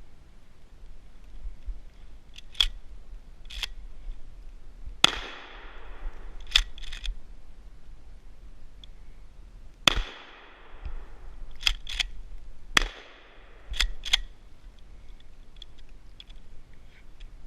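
Shotgun fired three times, about five seconds, ten seconds and thirteen seconds in, each blast trailing off over about a second. Between the shots come pairs of short metallic clicks from the gun's action being worked.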